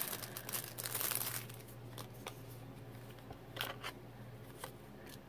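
Clear plastic packaging sleeve crinkling as it is pulled off a paper magnetic bookmark for about the first second and a half. A few soft clicks and taps follow as the card pieces are handled.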